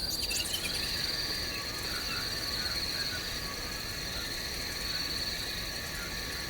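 Steady high-pitched insect chorus, with faint short frog calls repeating about once a second.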